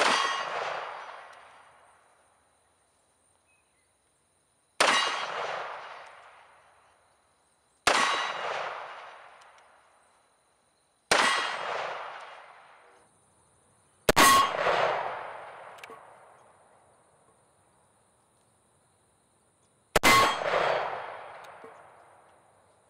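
Revolver shots fired one at a time, six in all, a few seconds apart. Each is a sharp crack followed by a ringing echo that fades over about two seconds.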